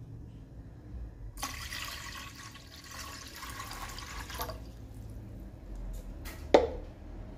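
Water poured from a plastic measuring jug into a nonstick cooking pot, splashing for about three seconds. A single sharp knock follows near the end and is the loudest sound.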